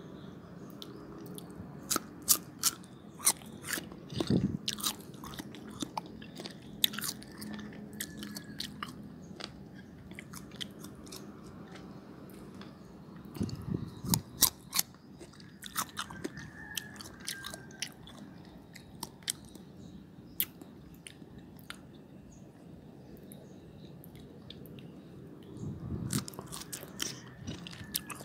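Close-up crunching and chewing of crisp raw young mango slices dipped in chili salt. The sharp crunches come in three spells: a few seconds in, about halfway, and near the end, with quieter chewing in between.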